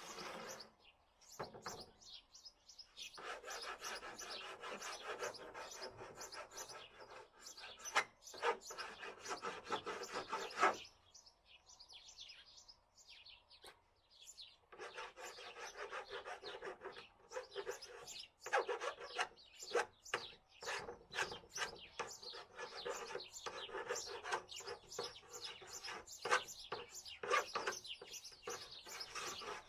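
Rapid rasping strokes of hand filing or abrasive work, scraped back and forth in two long spells with a pause of a few seconds in the middle.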